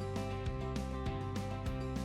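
Background music with held notes and repeated percussive hits.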